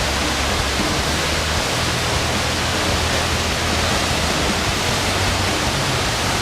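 Waterfall: a steady, loud wash of falling water with no break.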